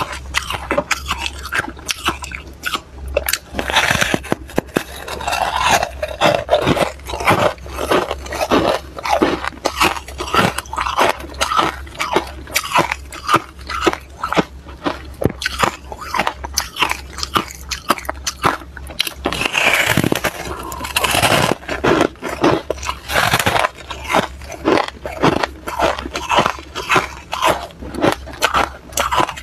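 Freezer frost being bitten and chewed close to a clip-on microphone: rapid, irregular crunching throughout, with a steady low hum underneath.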